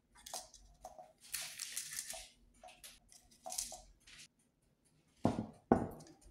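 Paper cupcake liners crinkling and rustling as they are pressed into a metal muffin tin, in a series of short bursts. Near the end come two sharp knocks about half a second apart, the loudest sounds here.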